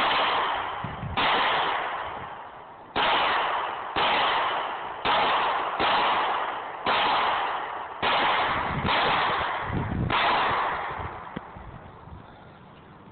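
Ten pistol shots fired at an irregular pace of roughly one a second, each trailing off in a long echo that fades before the next shot.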